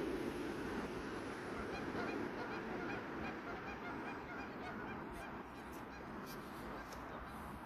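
A flock of geese honking, many short calls overlapping, over a low steady rumble that fades slightly.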